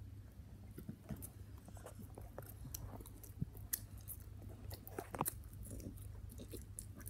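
Children chewing mouthfuls of homemade cinnamon roll close to the microphone: soft chewing with many small clicks, one louder about five seconds in, over a low steady hum.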